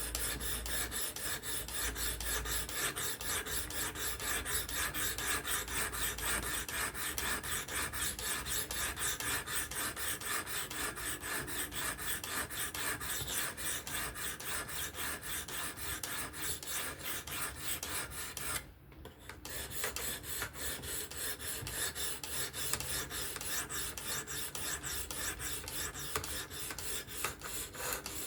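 Sharpening stone on a Work Sharp Professional fixed-angle sharpener drawn back and forth along the S30V steel blade of a Spyderco Kapara: a quick, even run of rasping strokes with one brief pause about 19 seconds in.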